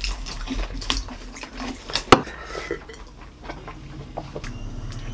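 Mukbang eating sounds: chewing and slurping noodles, with chopsticks clicking against a ceramic bowl. One sharp click about two seconds in is the loudest.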